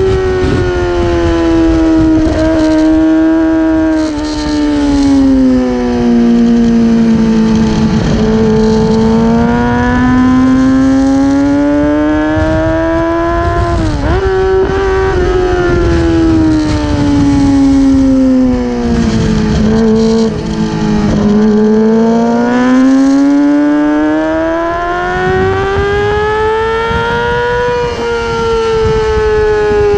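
Racing motorcycle engine at speed, heard from on board: its note falls slowly, climbs, dips sharply for a moment about halfway through, then falls and climbs again near the end. Low rushing noise runs under the engine.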